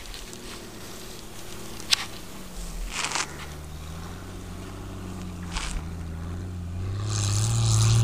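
Lifted 1993 Jeep XJ Cherokee engine revving as it ploughs through deep snow, rising and falling in pitch and growing louder as it comes closer over the last few seconds. A sharp click about two seconds in and a few brief rustles close to the microphone.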